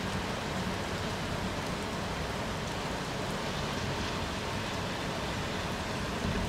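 Steady rain falling into a shallow puddle: a continuous, even hiss of many drops, with a low rumble underneath.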